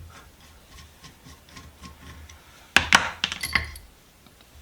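Metal parts of a cast-iron vise being handled during disassembly: a couple of sharp knocks about three seconds in, followed by several lighter clinks.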